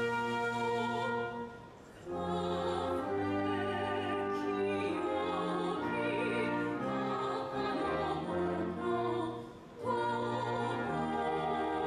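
Orchestral classical music in an operatic style, its phrases broken by short pauses about two seconds in and again shortly before the end.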